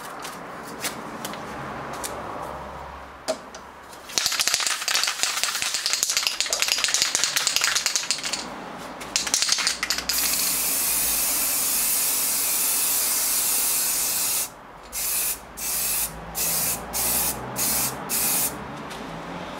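Aerosol can of matt black spray paint, first shaken with a dense rattle, then sprayed in one steady hiss of about four seconds, followed by about half a dozen short spray bursts.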